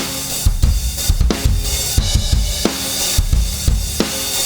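Acoustic drum kit playing a groove: kick and snare hits under a dense, continuous wash of cymbals. It is a demo of the KIIVE XTMax compressor plugin, a heavy, gritty compressor working at about 20:1, close to limiting, and described as not subtle at all.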